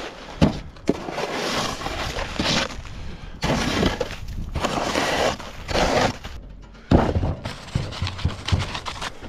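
Crunching and cracking of packed snow and ice in several long, rough stretches, with a few sharp knocks between them.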